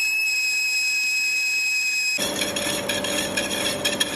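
Metal lathe boring a steel flange, the cutting tool giving a steady high-pitched squeal. About two seconds in it switches to a slitting saw cutting a steel ring under coolant: a rougher cutting noise with a steady lower hum and rapid ticks.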